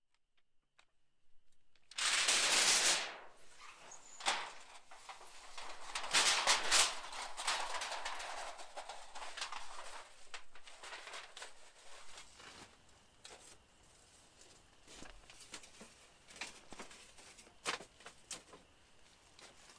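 Thin titanium stovepipe being handled and fitted together: a loud sliding metal scrape that drops in pitch about two seconds in, then scattered clinks, taps and rustling.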